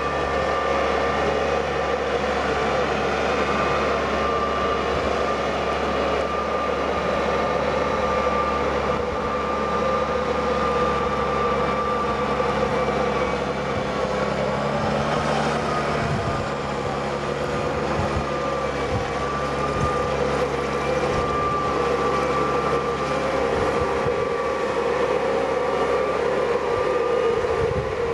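A camera drone's propellers whine steadily at two pitches that waver slightly.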